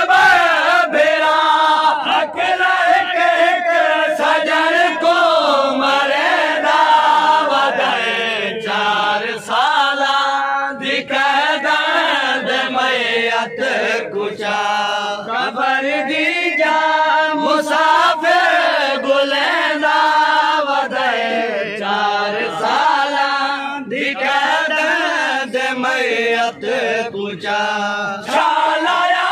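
Men chanting a Muharram noha (mourning lament): a lead voice sings long, wavering melodic lines.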